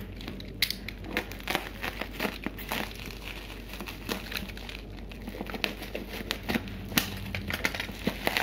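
Plastic bubble wrap and packing tape around a parcel crinkling and crackling as a utility knife cuts them and hands pull them apart, in many irregular small crackles.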